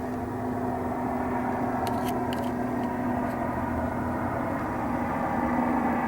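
Steady mechanical hum of a running motor, one even tone over a low rumble, with a few faint clicks about two seconds in.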